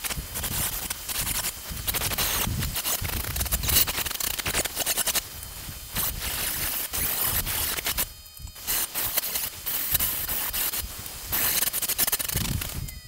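Corded angle grinder grinding steel channel, a harsh, steady grinding noise with a brief break about two-thirds of the way through, cutting off sharply at the end.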